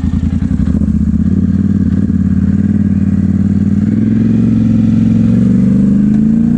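Polaris Sportsman 1000 ATV engine pulling away from idle, its note climbing steadily over several seconds as it accelerates across grass, then holding.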